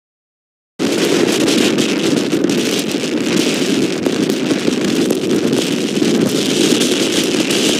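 Blizzard wind blasting a microphone: a loud, steady rush of wind noise that starts abruptly just under a second in, after dead silence.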